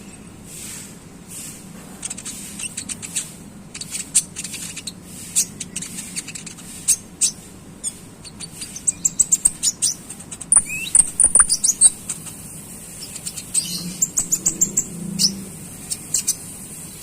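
Konin songbird chattering: rapid, high, sharp chirps in quick runs, with a short slurred whistle a little past the middle, the 'ngeriwik' chatter used to teach young konin birds to sing.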